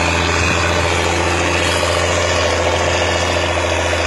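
Diesel engine of a John Deere motor grader running steadily under a constant low hum as the machine works across a steep dirt slope.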